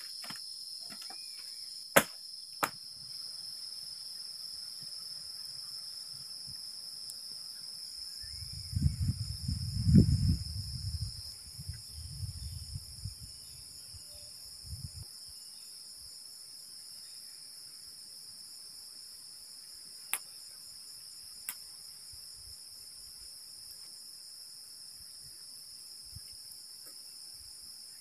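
Crickets and other night insects chirring steadily. A few sharp knocks cut through, a pair about two seconds in and another pair about twenty seconds in, and a low rumble swells and fades in the middle, loudest about ten seconds in.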